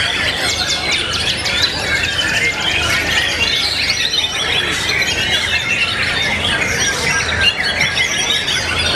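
Many white-rumped shamas singing at once in a dense, unbroken mix of quick whistles, trills and harsh squeaky chatter, with no single song standing out.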